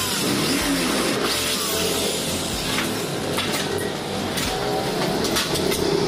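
Electric drill running as it bores through aluminium sliding-door profiles near the start, then sharp clicks and knocks of the aluminium profiles being handled. Background music plays underneath.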